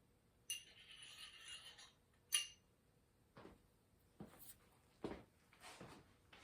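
Faint clinking of small metal parts being handled: a jangle with a ringing tone for about a second and a half, one sharp clink, then several soft knocks.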